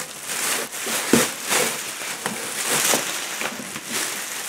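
Thick clear plastic bag crinkling and crackling as it is pulled off and gathered up by hand, with a sharper crackle about a second in.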